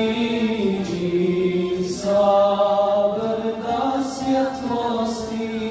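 Male voices singing an ilahija, a Bosnian Islamic devotional song, in long held notes that step and slide from pitch to pitch.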